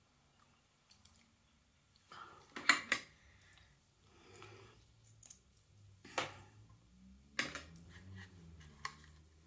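Small hard makeup containers clicking and tapping as they are handled and set down on a table: a double click about two and a half seconds in, then single taps near the middle and toward the end.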